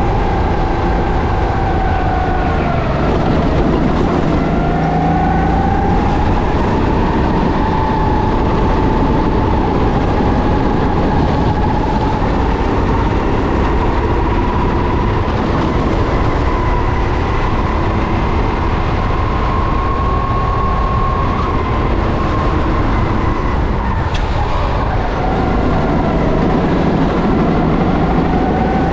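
Racing kart engine running hard at high revs, its pitch dropping twice as the kart slows for corners and climbing again as it accelerates back out, with a heavy rush of wind and chassis rattle underneath.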